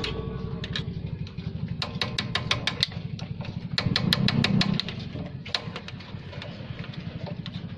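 An engine idling steadily, with clusters of quick, light metallic clicks from a steel bar being worked against a tie-rod end's ball-joint stud.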